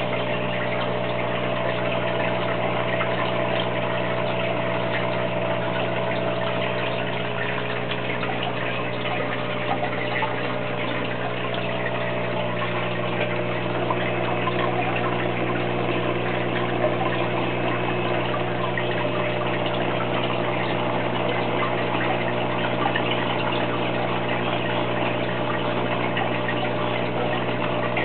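An aquarium pump hums steadily, mixed with the constant bubbling of water from air-driven sponge filters in the tank.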